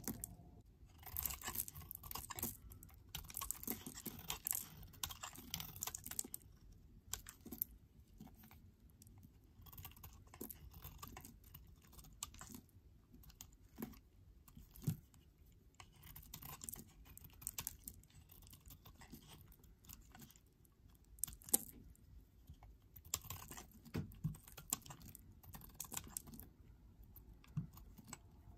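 Snap-off utility knife blade shaving thin curls off a bar of pink soap: crisp, crackly scraping strokes in quick irregular runs, with flakes breaking away.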